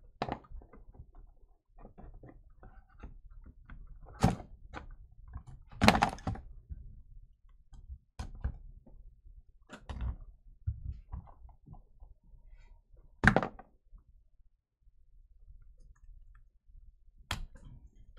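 Hands handling a small black Panini Noir cardboard box and its cards: rustling and light clicks, with a few sharp knocks and thunks as the box and lid are opened and set down, the loudest about six and thirteen seconds in.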